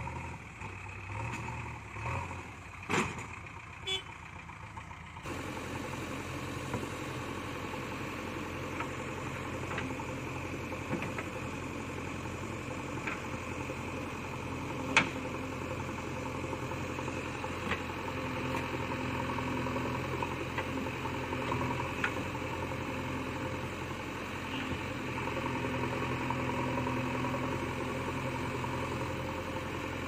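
JCB backhoe loader's diesel engine running steadily as the machine works, with a few sharp metallic clanks from the bucket and arm. The loudest clank comes about 15 seconds in.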